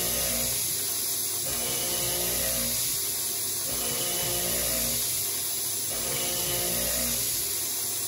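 Background music with sustained chords that change about every second and a half, over a steady high hiss.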